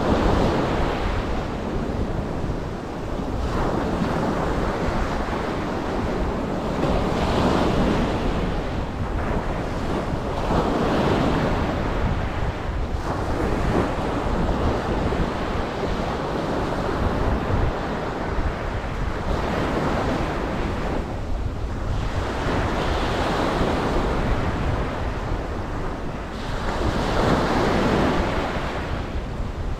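Ocean waves breaking and washing up a beach. The surf surges and falls back about every three to four seconds over a steady low rumble.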